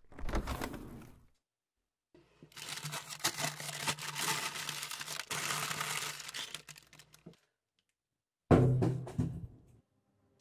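Plastic packaging crinkling and rustling with many small clicks for about five seconds, hands rummaging through wrapped freezer contents, after a short rustle at the start. A loud thump follows near the end.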